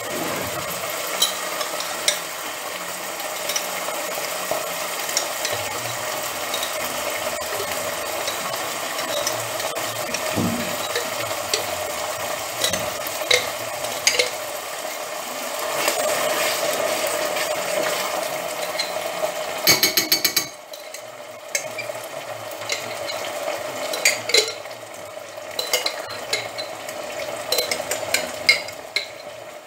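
Meat sauce sizzling in a stainless steel pot, with repeated clinks and scrapes of a spoon scooping ready-made tomato sauce out of a jar into the pot. About twenty seconds in there is a quick run of clinks and the sizzling quietens, leaving scattered spoon taps.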